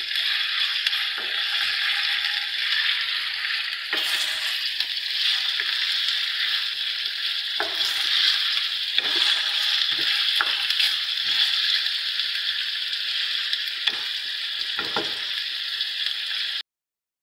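Boneless chicken thigh cubes sizzling steadily in hot oil with ginger-garlic paste in a non-stick wok while being browned, with a spatula scraping and turning them every so often. The sizzle cuts off suddenly just before the end.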